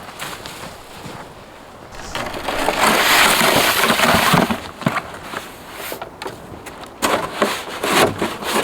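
Snow crunching and scraping as it is cleared away, with a long loud stretch of crunching in the first half and a run of shorter crunches near the end.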